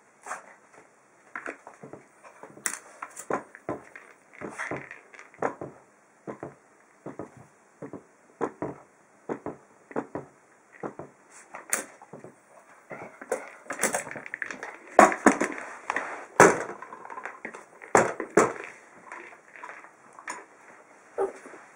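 Irregular knocks and clatters of a big red ball being batted and pushed about by a small dog, bumping on a metal-topped surface and the floor. The knocks come thicker and louder from about the middle on.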